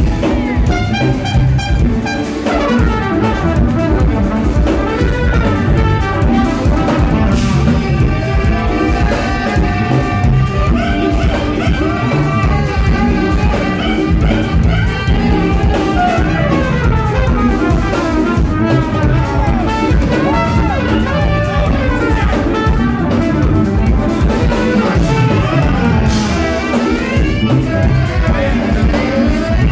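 Live jazz-fusion band playing loud, with a trumpet soloing in bending, sliding lines over drum kit, bass and percussion. Recorded right next to the stage, so the sound is rough and crowded.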